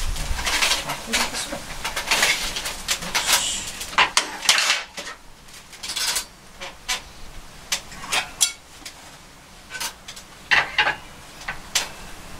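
Stainless-steel parts of a Uniflame wood grill solo being handled and fitted together: repeated sharp metal clinks, knocks and rattles, closely packed for the first few seconds and then coming in shorter scattered clusters.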